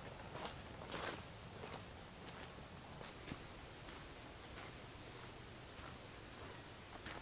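Steady high-pitched drone of insects singing, with a few footsteps of a hiker walking, the clearest about a second in.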